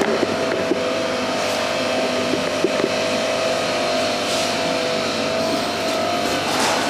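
A steady machine drone with a few held tones, such as a motor or engine running, with a few light clicks in the first second.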